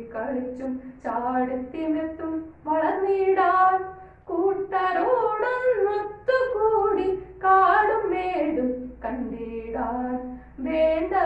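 A boy singing a Malayalam poem in a chanting melody, one voice holding and gliding between notes, with short pauses between lines.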